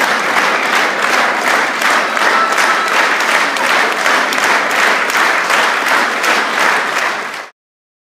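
Audience applauding, a dense, steady clapping of many hands that cuts off suddenly near the end.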